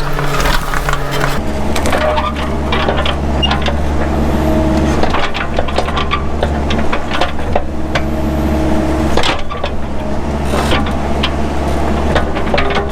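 Mini excavator's diesel engine running steadily under load, its note shifting about a second and a half in, with repeated sharp cracks and snaps of brush and small trees being broken and crushed.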